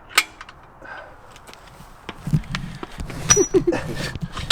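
Metal clinks and rattles of steel bolts and a nut being handled while the nut is threaded on to test the bolt's thread: one sharp click near the start, then a busy patch of irregular clicking from about halfway in.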